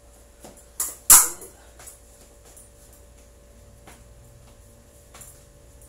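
Épée blades clicking against each other in a fencing exchange, with a single loud knock about a second in and a few fainter clicks after.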